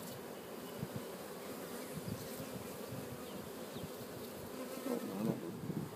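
Many honeybees buzzing steadily around an opened hive, a dense, even hum of wingbeats.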